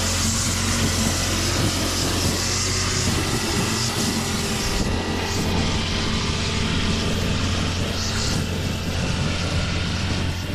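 Brush cutter with a nylon string head running steadily at working speed, its line cutting long grass.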